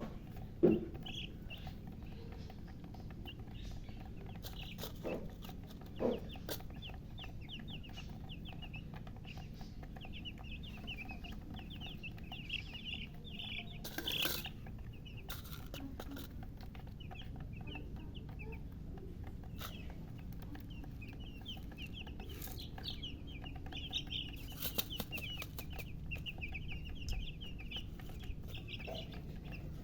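Newly hatched chicks peeping: many short high chirps in quick runs, growing busier in the second half. A thump sounds about a second in.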